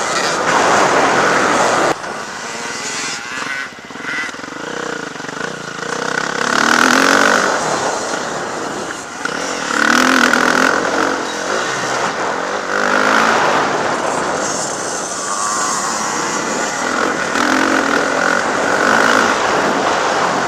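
Off-road motocross motorcycles riding the track, engines revving up and falling back every few seconds, with an abrupt change in the sound about two seconds in.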